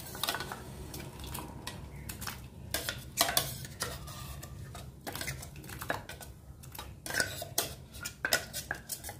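Scattered sharp clinks and knocks of steel kitchenware over a low steady hum, while a stainless steel pot of water comes to a rolling boil on a gas stove.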